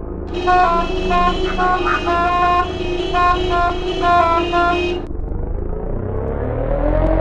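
Cartoon taxi horns honking: several horn tones in short, overlapping toots over a background music loop. The horns stop about five seconds in and a low rising sound follows.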